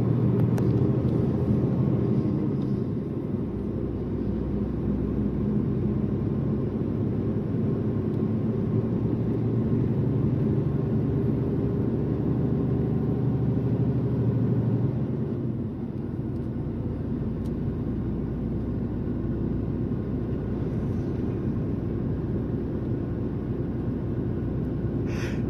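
Heavy truck's diesel engine pulling steadily under load up a long mountain climb, a continuous low drone that eases off somewhat about fifteen seconds in.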